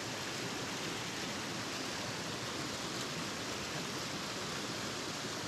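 Steady, even rush of a river's flowing water running over riffles.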